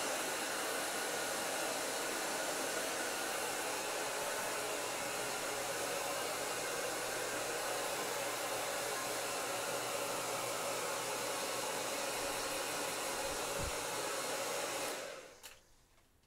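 Handheld electric blow dryer running steadily, drying a wet dog's coat, then switched off near the end, its rush of air dying away over about a second.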